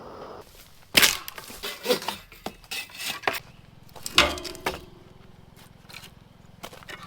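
Camp cookware being handled: a string of sharp knocks and clinks, a few ringing briefly like metal, after a steady hiss cuts off in the first half-second.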